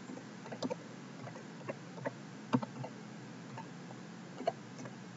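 Computer keyboard being typed on: a faint, uneven run of light key clicks as a folder name is entered.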